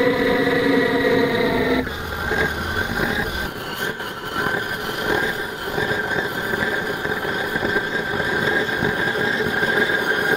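A homemade steam motorcycle's kerosene burner being lit from a kerosene-soaked rag. A steady hum and whine changes about two seconds in to an even rushing with a high steady whine as the flames take.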